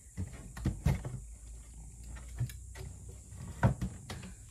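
A handful of sharp, irregular knocks and bumps, the loudest two about a second in and two close together near the end, over a steady low hum.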